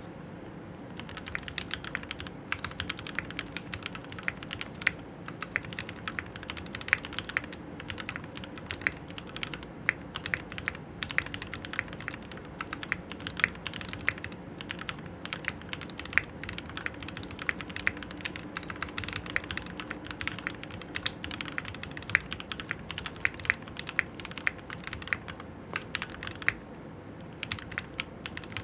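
Typing on a stock Keychron Q6 mechanical keyboard with Gateron G Pro Red linear switches: a fast, continuous run of key clacks starting about a second in, with a brief pause near the end.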